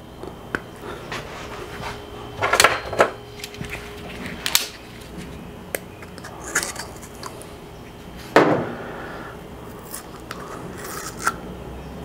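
Opening a new plastic bottle of assembly lube: handling noise and rubbing on the plastic, with several sharp clicks and snaps as the cap is worked and the nozzle tip is cut off with cutters.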